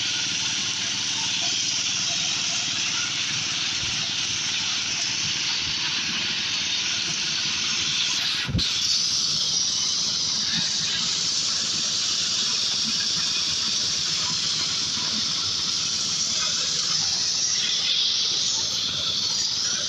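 Corn sheller machine running: a steady hiss over a faint low hum, with one sharp click about eight and a half seconds in.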